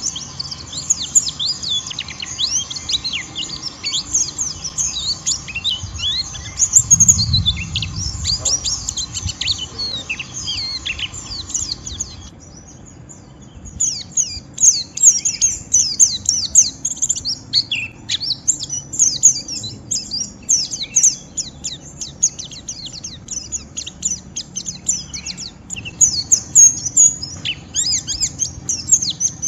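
White-eye (pleci) giving the rough, rapid 'ngeriwik' twitter: a dense run of high chirps, each sweeping down in pitch, that breaks off for about a second a little before halfway and then resumes. This is aroused, rival-provoking singing.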